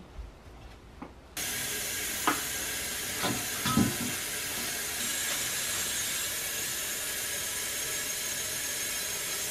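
Kitchen faucet turned on about a second and a half in, running steadily into a stainless steel bowl of kale in the sink to wash the greens. A few knocks from the bowl and leaves being handled come between about two and four seconds in.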